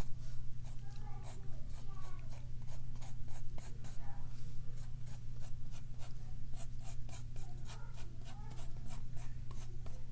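Pencil drawing on paper: a run of quick, short scratching strokes as the sail is sketched, with a steady low hum underneath.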